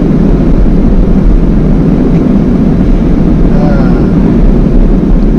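Steady low rumble of road and engine noise inside a van's cabin while driving.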